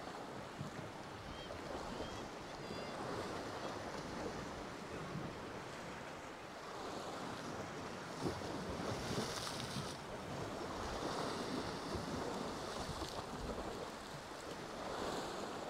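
Sea waves washing and breaking against rocks, the surf swelling and easing off a few times.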